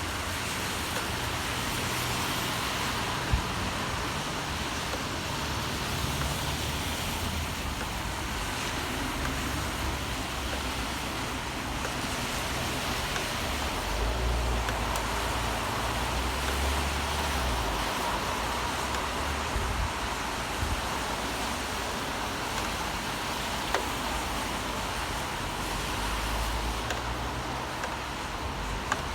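Steady city traffic on wet streets in the rain: a continuous hiss with low rumbles of passing vehicles swelling and fading, and a few brief sharp ticks.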